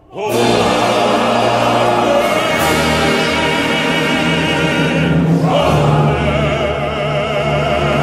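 Orchestral music with a male choir singing long held chords. It comes in abruptly at the start, and the chords change about five and a half seconds in.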